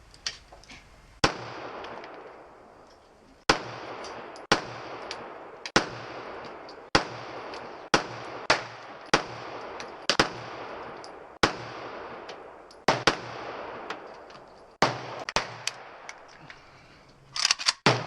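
A string of about fifteen handgun shots fired at an uneven pace, each crack followed by a trailing echo, with a quick cluster of shots near the end.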